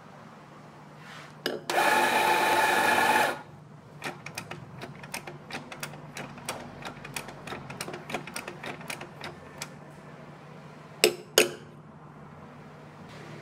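An Anfim doser espresso grinder's motor runs for about a second and a half, then the doser lever is flicked over and over, clacking about four times a second for some six seconds as ground coffee drops into a portafilter. Two sharp knocks follow near the end.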